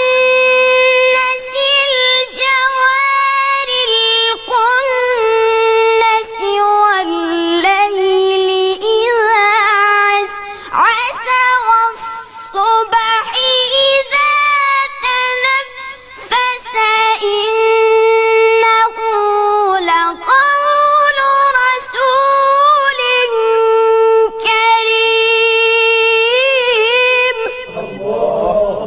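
A high, clear voice reciting the Quran in a drawn-out melodic style, holding long ornamented notes with short pauses for breath. The voice fades out near the end.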